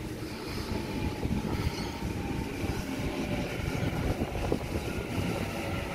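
Sydney Trains Waratah double-deck electric train running in alongside the platform: a rough rumble of wheels on rails with a faint whine above it, growing louder as the cars draw level.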